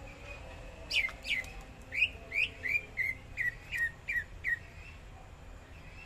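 Green leafbird (cucak ijo) singing: a quick run of about ten sharp whistled notes, each dropping quickly in pitch, about three a second, starting about a second in and ending before the last second.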